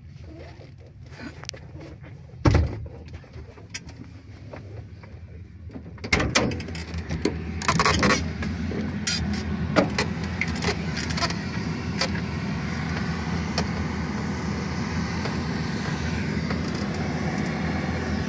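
Truck engine running steadily. There is a loud thump about two and a half seconds in, and a run of sharp clattering knocks and rattles from about six to twelve seconds in. After that the engine is louder and steady.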